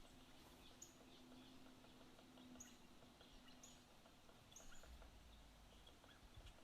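Faint birds chirping: short, high, repeated chirps over a quiet background.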